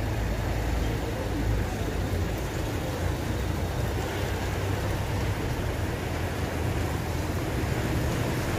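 Steady noise of a wet street with a white van driving by, its engine and tyres running over rain-soaked cobblestones. A low rumble runs under it throughout.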